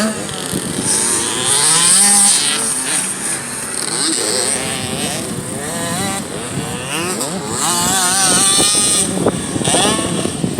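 Several youth motocross bikes running on the track together, their engines revving up and down as they ride past, several pitches rising and falling and overlapping.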